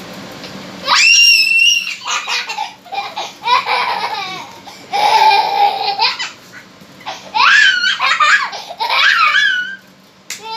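A toddler squealing and laughing in repeated high-pitched bursts, with a loud, sharp shriek about a second in.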